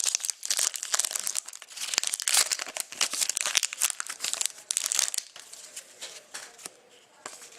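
Wrapper of a 2013-14 SP Game Used hockey card pack being torn open and crinkled. The crackling is strong for about five seconds, then gives way to softer handling as the cards come out.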